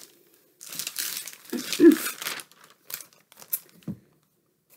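Packaging crinkling loudly as a white mailer is handled and opened, then a few scattered lighter rustles and taps in the second half.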